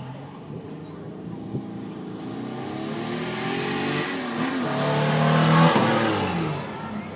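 Holden Torana XU-1's straight-six engine revving up and down as the car is driven hard through a cone course, growing louder as it comes close. About six seconds in the revs drop and the sound falls away as it passes.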